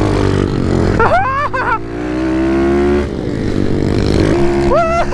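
Small pit bike engine running hard under acceleration: its pitch climbs, drops sharply at a gear change about three seconds in, then climbs again.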